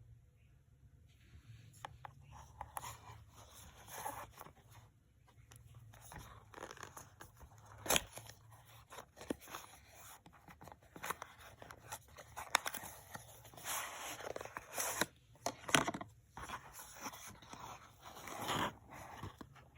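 Hands unboxing a perfume: packaging rustling, scraping and tearing, broken by sharp clicks and taps, the loudest about eight seconds in and around fifteen to sixteen seconds in.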